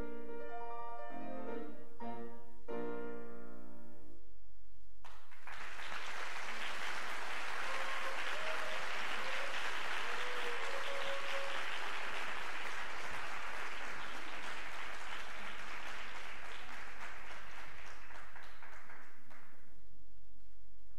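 Grand piano playing the closing chords of a piece, which end about three and a half seconds in. After a short pause, an audience applauds steadily for about fourteen seconds, and the applause stops near the end.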